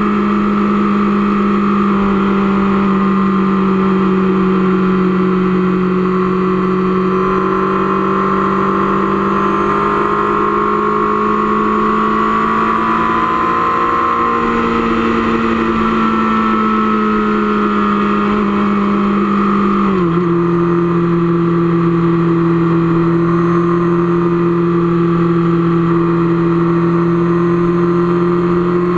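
Motorcycle engine running steadily at highway cruising speed, heard from the rider's seat. Its note rises a little and falls back, then drops abruptly to a lower steady pitch about twenty seconds in.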